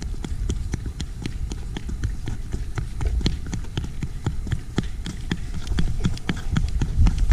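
Running footsteps on wet paving stones, a quick regular train of steps, over a low rumble.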